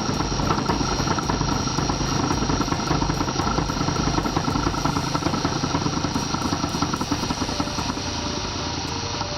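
Small lathe set up for milling, running with a four-flute end mill turning at about 600 RPM on aluminium bar stock: a steady mechanical drone with a thin, constant high tone over it.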